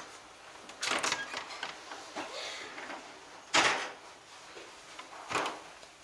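Wooden glass-panelled door with brass handles being opened and swung shut, a few short clatters and knocks, the loudest about three and a half seconds in.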